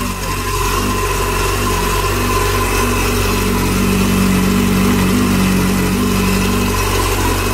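Yamaha FZ1 motorcycle's inline-four engine idling steadily, with a deeper drone swelling for a few seconds around the middle.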